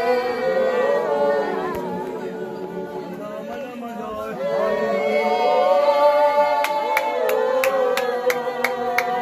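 A congregation of mixed voices singing a worship song unaccompanied. About two-thirds of the way through, a sharp rhythmic beat of about three strokes a second comes in under the singing.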